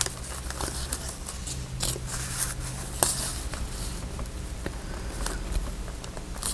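Paper rustling with scattered light clicks and taps as paper craft pieces are handled, over a faint steady low hum.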